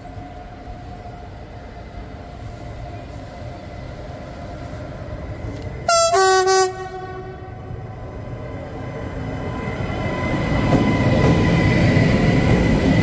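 Siemens EuroSprinter ES64F4 electric locomotive approaching and passing: about six seconds in it gives a short two-tone horn blast, a higher note then a lower one. The rumble of its wheels on the rail then grows loud as it passes close by, with a steady high whine over it.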